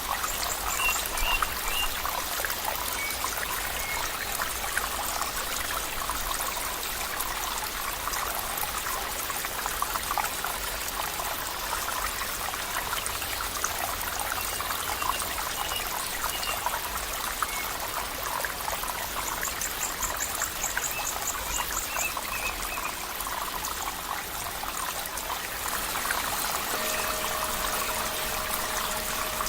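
Stream water trickling and splashing steadily, with a few faint short chirps and a brief rapid trill about two-thirds of the way through.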